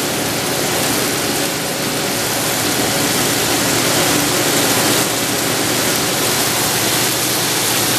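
Snow goose breasts with onions and garlic frying in hot olive oil in a skillet: a steady, even sizzling hiss.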